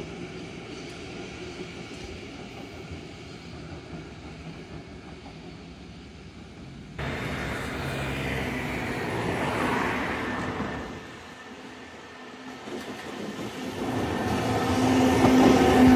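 Randen (Keifuku Electric Railroad) streetcars on street track amid road traffic: first Mobo 502 running at a distance, then, after an abrupt change about seven seconds in, traffic noise rising and falling, and Mobo 106 approaching with a growing steady hum, loudest near the end.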